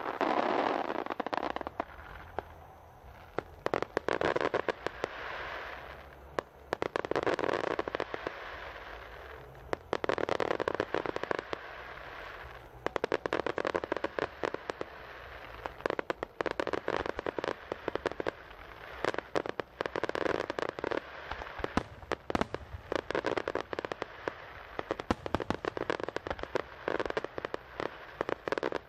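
Fireworks starmine barrage: rapid sharp bangs of bursting shells mixed with crackling, coming in waves every few seconds.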